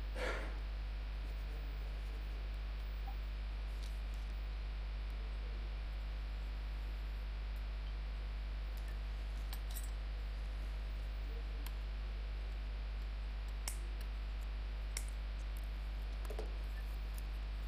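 Steady low electrical hum and room noise, with a few faint scattered clicks and taps from handling a soldering iron, a perforated circuit board and a small component.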